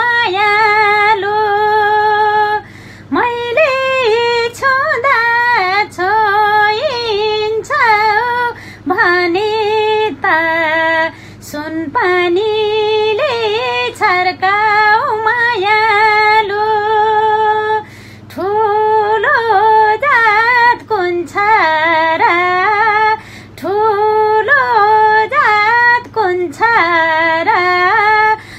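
A woman singing a Nepali song solo, with no instruments, in long held and ornamented phrases and short breaths between lines.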